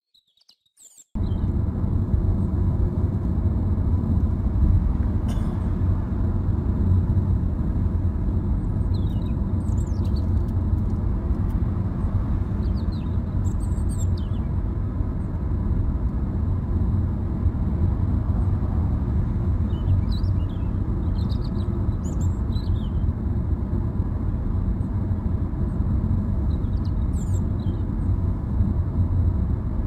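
Steady low rumble of road and wind noise inside a car driving at motorway speed, starting abruptly about a second in. Faint, brief high chirps come and go above it.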